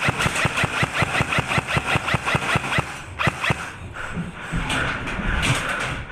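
An airsoft electric rifle firing on full auto, a rapid even rattle of about eight or nine shots a second that stops about three seconds in. After that come a few scattered knocks.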